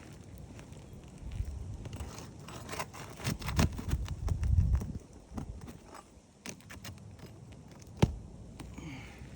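Asphalt roof shingles being worked with a roof snake (shingle ripper) to pull nails from under lifted tabs: scattered scrapes and clicks, low rumbling handling noise in the middle, and a sharp click about eight seconds in.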